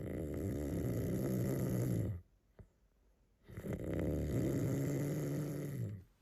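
A man snoring in his sleep: two long snores of about two seconds each, with a quiet gap of about a second and a half between them.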